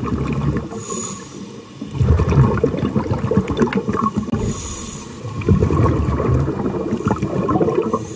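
Scuba diver breathing through a regulator underwater: a short hiss of inhalation, then a longer burst of bubbling exhalation, twice.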